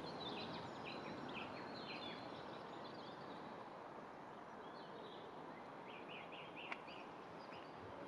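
Small birds chirping and singing in quick short phrases over a steady hiss of outdoor background noise, with one sharp click about two-thirds of the way through.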